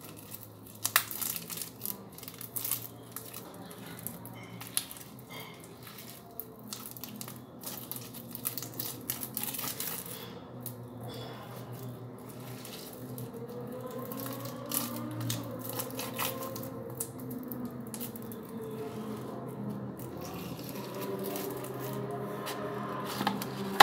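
Thick cornstarch-and-glue slime being squeezed, pulled apart and kneaded by hand, giving quick sticky clicks and crackles that are densest in the first half.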